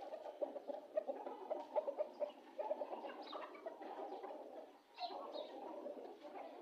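Aseel chickens clucking and chattering steadily, with a scatter of short ticks, as chopped greens are put down for them to eat.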